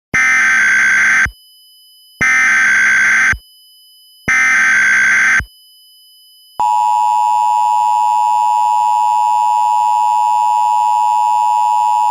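Emergency Alert System SAME header: three bursts of digital data tones, each about a second long and about two seconds apart. About six and a half seconds in, the steady EAS two-tone attention signal starts and holds.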